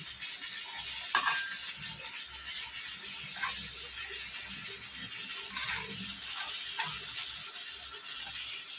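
Sliced onions and tomato pieces being dropped by hand into a steel mixer-grinder jar: soft rustles and a few light clinks against the metal, the sharpest about a second in, over a steady hiss.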